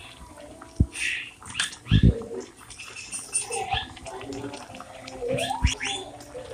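Several sharp knocks from kitchenware being handled, the loudest about two seconds in, over short chirping and squawking animal calls.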